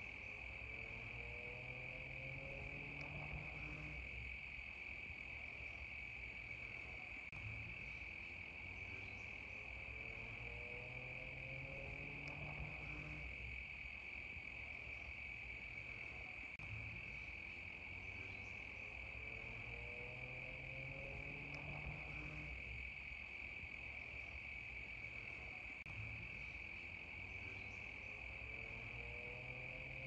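Cicadas buzzing in one steady, unbroken drone. Beneath it, a faint low rising tone comes back about every four and a half seconds.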